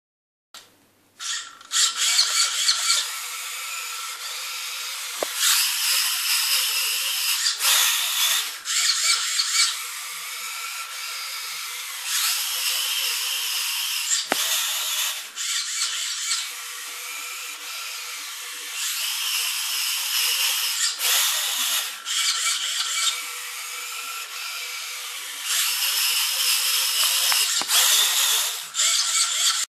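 The small geared motors in a mini rover's four HUB-ee wheels and its steering servos whirring as it drives, the whine getting louder and quieter in turns every few seconds as it runs through programmed moves. A few sharp clicks break in now and then.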